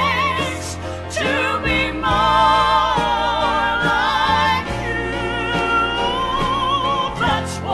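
1970s gospel vocal group singing in harmony, male and female voices over a band, holding long notes with a wide vibrato.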